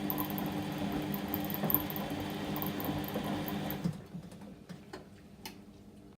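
Whirlpool washing machine motor turning the drum on a delicate wash cycle, a steady mechanical hum that stops about four seconds in, followed by a few faint clicks.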